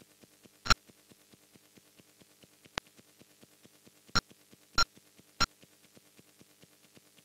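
Minimal electronic glitch music: a fast, even pulse of soft ticks, about eight a second, over faint held low tones. Five sharp, loud clicks are spaced irregularly through it.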